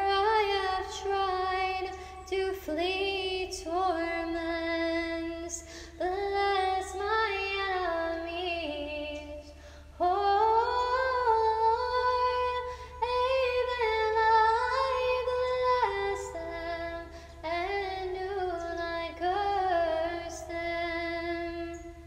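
A woman's solo voice singing slow, unaccompanied Orthodox-style chant, with long held notes that rise and fall. Her words are not clear.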